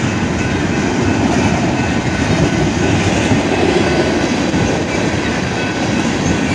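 Freight train of container cars and tank cars passing close by, its wheels rolling steadily over the rails.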